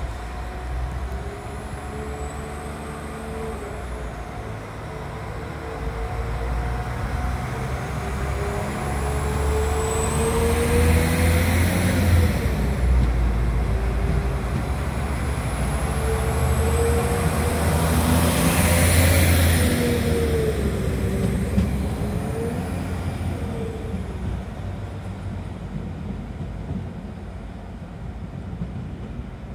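A train passing: a steady rumble under a whining drone that glides up and then drops in pitch several times, loudest twice, around eleven and nineteen seconds in, then fading.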